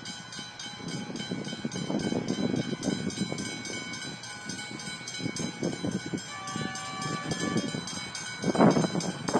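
Railway level-crossing bells ringing rapidly and steadily as a train approaches. A train horn sounds briefly past the middle, and gusts of wind on the microphone grow loud near the end.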